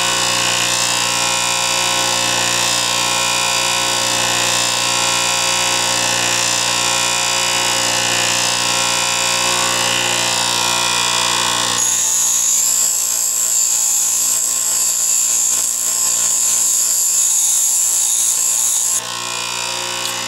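Bench grinder running while a soft-steel threading-tool blank is ground freehand on its coarse wheel: a steady motor whine under a hissing grind. About twelve seconds in the sound turns thinner and brighter, a high hiss without the low hum, for about seven seconds before the fuller sound returns.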